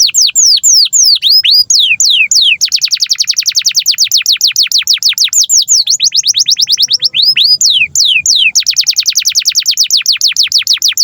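Canary singing a loud, unbroken song of rapid trills: runs of quick, repeated down-sweeping notes at about ten a second, broken by slower, wider swooping notes.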